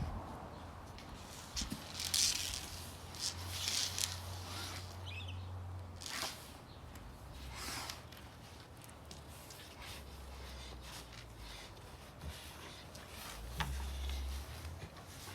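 A pet scratching itself: irregular bursts of scratching and rustling, busiest in the first few seconds, with one short sharp sound near the end.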